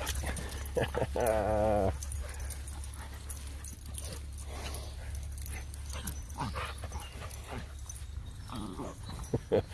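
A dog's drawn-out, wavering whine-growl about a second in, followed by shorter yips and grumbles, from a corgi-mix pestering another dog for the woven belt it holds as a tug toy.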